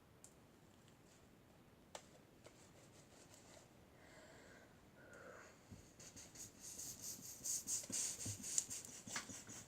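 Dry, lumpy slime being squished and kneaded by hand: faint at first, then a dense run of small crackling clicks from about six seconds in.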